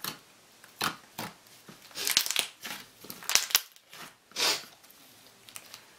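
Hands squeezing and poking a homemade butter slime made from modelling clay and shaving cream: several short crackly squishes, about four separate bursts, with a few sharp little pops among them.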